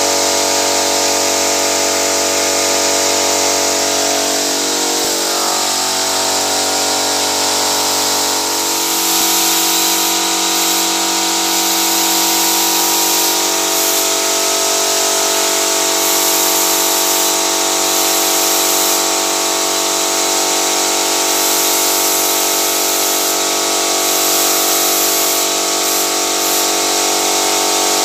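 Paint spray machine running: a steady motor hum under a loud hiss of air and paint from the spray gun. The hum shifts in pitch between about five and nine seconds in, then holds steady.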